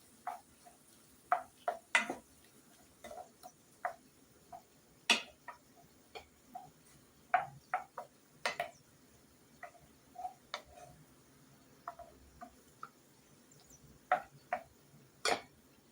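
A spoon knocking and clicking against a cooking pot as a stew is stirred: irregular short taps, one to three a second, a few sharper and louder than the rest.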